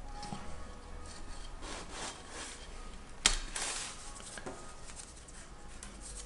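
Hands handling a small model fork attachment: scattered rubbing and scraping, with one sharp click a little over three seconds in.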